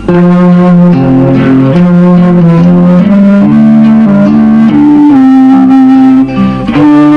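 A simple tune played on a small handheld flute, held notes stepping up and down in pitch, loud and continuous.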